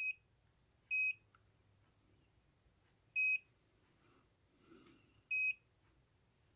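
Short, high electronic key beeps from the Mustool MDS120MC2 handheld oscilloscope as its buttons are pressed, four times at uneven intervals.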